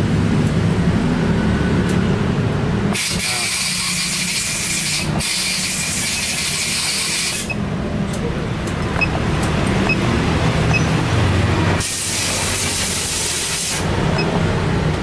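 Workshop noise: a steady low mechanical hum, broken by three loud bursts of hissing, each about two seconds long. The first two run almost back to back about three seconds in, and the third comes about twelve seconds in.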